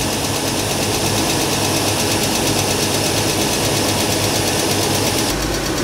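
2008 Kia Sportage's 2.7-litre V6 idling steadily with the air conditioning running on high, under a steady high hiss. Near the end the hiss thins and a low hum comes up.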